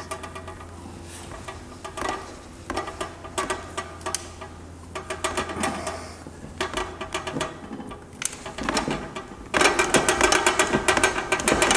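Rapid mechanical clicking and rattling in short bursts, becoming a dense, louder run of clicks near the end.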